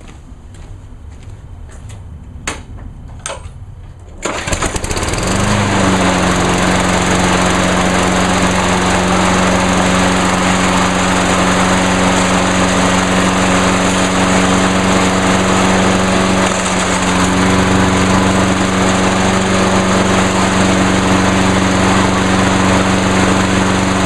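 Briggs & Stratton Quantum engine of a 2003 Huskee (MTD) 22-inch self-propelled mower, primed three times, pull-started cold. It catches on the first pull about four seconds in and then runs steadily at speed. A few faint clicks come before the pull.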